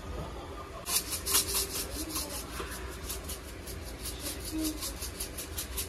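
Seasoning shakers shaken rapidly by hand, ground black pepper and coarse sea salt rattling out of their containers in a quick run of short, hissy shakes, several a second, starting about a second in.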